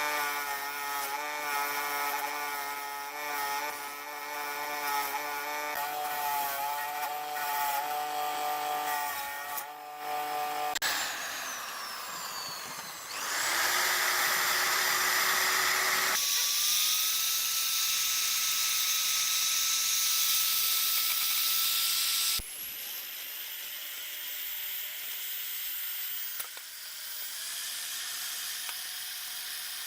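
Small electric power tools running steadily in a series of short cut-together segments. The pitch and character change abruptly several times, about 11, 13, 16 and 22 seconds in.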